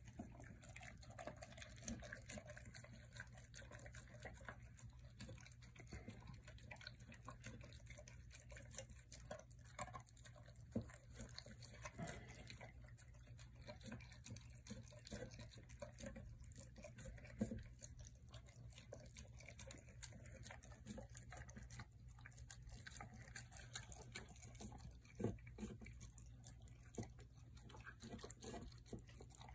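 Cane Corso eating wet food from a stainless steel bowl: faint, irregular wet smacking and lapping, with a few sharper clicks now and then.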